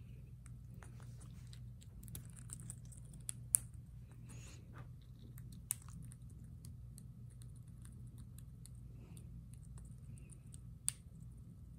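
Quaker parrot eating a Nutri-Berry seed ball, cracking and nibbling the seeds with its beak: quiet, scattered crunching and clicking, with a few sharper cracks about three and a half, six and eleven seconds in, over a faint steady hum.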